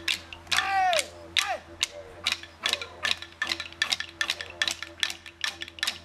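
Rapid, even tapping like wooden sticks struck together, about six strikes a second, over a steady low hum, with two falling calls about half a second and a second and a half in.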